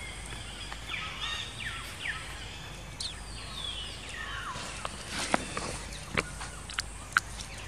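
A few high, falling animal calls over steady outdoor background noise, then a run of sharp clicks and taps in the second half, the loudest of them near the end.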